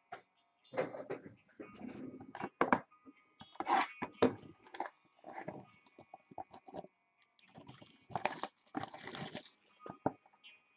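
Card packaging being handled: irregular clicks, crinkling and tearing, with a longer tearing or rustling stretch near the end.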